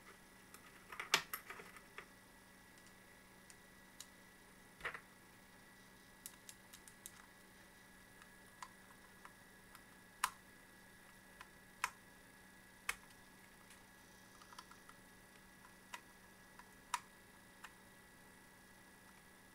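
Small sharp clicks and ticks of screws and a screwdriver working in a plastic computer mouse shell as it is screwed back together: a quick cluster of clicks about a second in, then single ticks every second or two.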